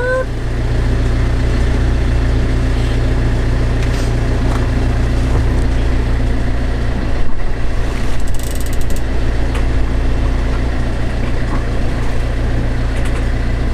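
A sailboat's auxiliary engine drones steadily while the boat motors along in calm water. A few sharp clicks and rattles come about halfway through as a tripod mount is handled.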